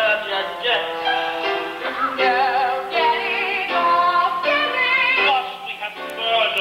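Singing from a stage musical with musical accompaniment: sustained sung notes wavering with vibrato, on a dull-sounding old tape recording.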